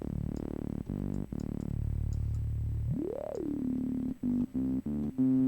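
Reveal Sound Spire software synthesizer playing a bass patch. It holds low notes, has a tone that sweeps up and falls back about three seconds in, then plays a run of short, choppy notes near the end.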